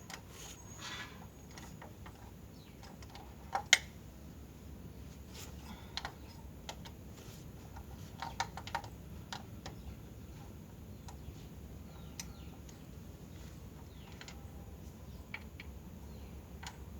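Scattered light clicks and taps, with one sharper double knock about four seconds in, over a low steady hum.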